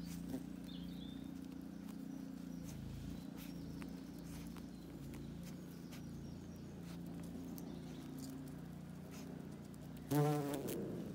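A bumblebee buzzing steadily at close range, its low hum drifting slightly in pitch. About ten seconds in, a short, much louder pitched sound breaks in.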